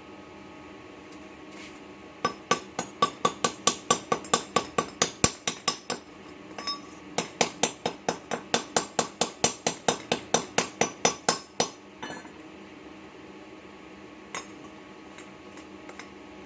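A hammer striking metal in two quick runs of sharp, ringing blows at about four a second, with a short pause between them.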